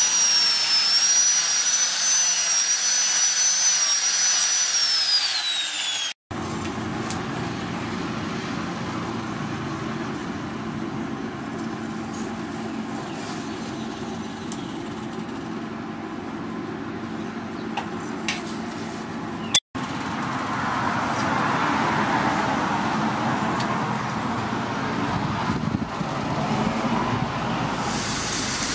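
An angle grinder with a sanding disc grinding a steel knife blade, its high whine dropping away as it spins down about six seconds in. Then a charcoal forge fire runs with a steady rush and low hum and occasional faint crackles, and near the end a high hiss starts as the red-hot blade meets water for quenching.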